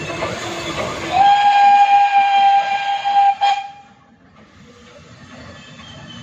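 Locomotive horn sounding one steady high note for about three seconds, starting about a second in, with a sharp click near its end. Station background noise runs under it.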